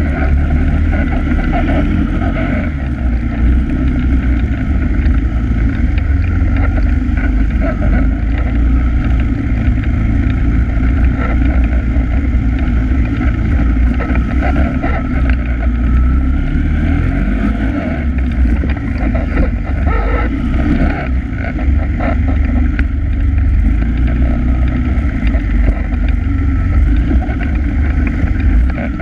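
All-terrain vehicle (quad) engine running under way with a steady low rumble, its pitch shifting up and down briefly a little past the middle as the throttle changes.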